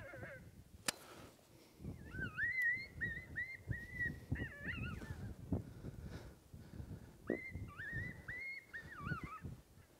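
Electronic predator caller playing high-pitched, wavering animal cries in two runs, starting about two seconds in and again about seven seconds in. A single sharp click sounds near the start.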